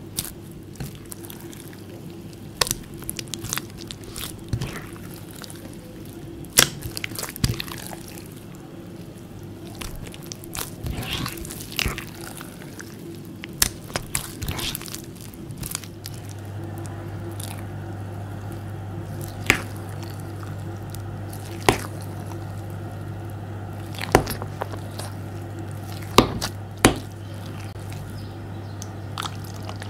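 Fingers pressing and squishing wet, grainy jelly slime in a glass bowl, giving scattered sharp wet pops and clicks, with a steady low hum underneath. Near the end a spoon scoops through the slime.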